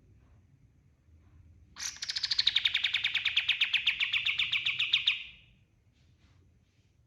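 A kapas tembak songbird gives one rapid trill of about ten evenly repeated notes a second, lasting about three seconds and fading out at the end.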